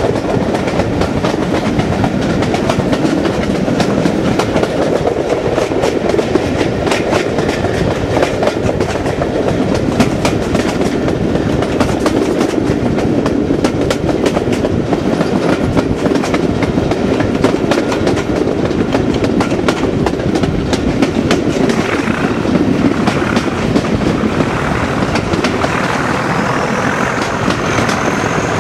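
Class 37 diesel locomotive 37109's English Electric V12 engine working hard under power, heard from an open window of a coach behind it, with the carriage wheels clattering over rail joints. A high whistle rises in pitch near the end.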